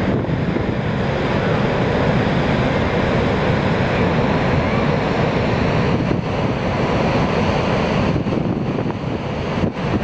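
Niagara's Horseshoe Falls: a huge volume of water plunging over the brink into the basin, heard as a loud, steady, dense rush of falling water.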